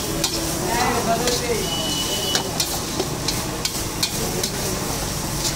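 Fried rice sizzling in a large metal wok over a gas flame while a steel spatula stirs and tosses it, scraping and clinking against the wok about twice a second.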